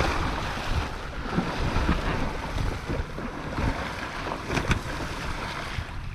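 Water churning and splashing as a shark attacks a hooked tarpon close to a kayak, over steady wind noise on the microphone, with a few light knocks.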